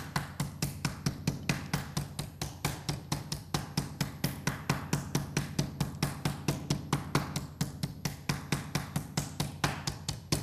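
Meat mallet tapping a chicken breast flat through plastic wrap on a wooden cutting board: a steady, even run of light taps, about five a second.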